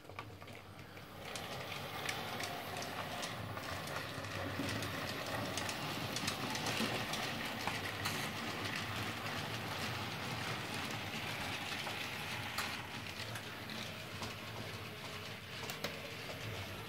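TT-scale model freight train running along the layout's track: a steady running noise of the train and its wagons that builds about a second in, with scattered clicks.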